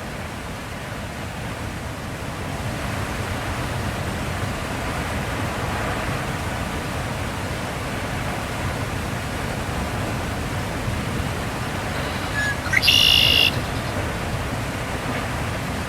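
Steady rushing noise throughout, with one short, high-pitched bird call near the end that is the loudest sound.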